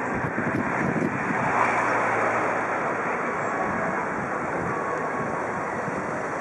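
Steady outdoor rushing noise with wind buffeting the microphone in uneven low gusts.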